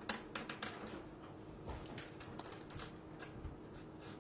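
A kitten playing at a sisal scratching post: irregular light clicks and scratches, a quick cluster in the first second and then scattered ticks, over a faint steady hum.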